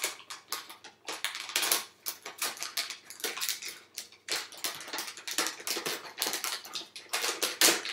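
Metallised anti-static foil bag crinkling and rustling in irregular crackles as it is cut open and pulled off the crypto-mining unit.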